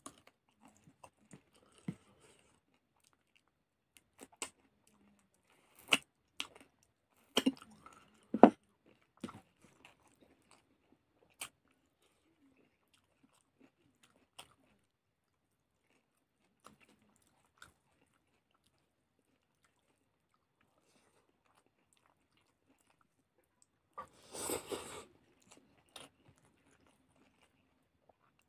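Close-up chewing and crunching of a chicken leg: sharp crunches scattered through the first ten seconds, long quiet gaps, then a denser burst of crunching about 24 seconds in.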